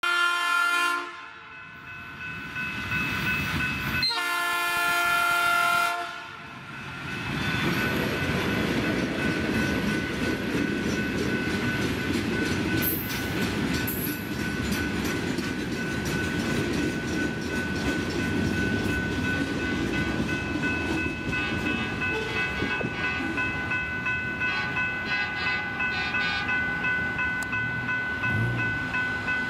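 Two horn blasts near the start. Then ballast hopper cars roll past on the rails: a steady rumble with a high tone held over it.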